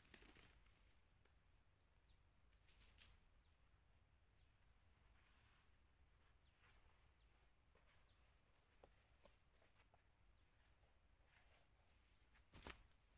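Near silence: faint outdoor ambience with a steady high-pitched drone and a few soft rustles or knocks.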